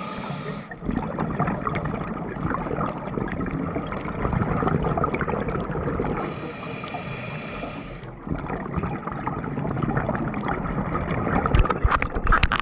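Underwater ambience picked up by a camera moving through the water: a steady crackling, rushing water noise, with a few sharp knocks near the end.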